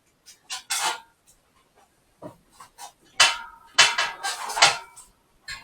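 Bicycle tyre and inner tube being handled by hand: short scrapes and knocks, then a louder stretch of rubbing and scraping about three seconds in.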